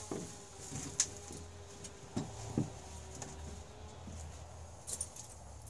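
A few light knocks and clunks, spread over several seconds, as a snowmobile's three-cylinder engine is lifted out and set down on a board of OSB, over a faint low hum.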